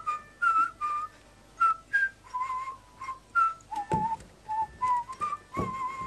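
A whistled tune of short notes hopping between a few pitches, with two dull thumps, one about four seconds in and one near the end.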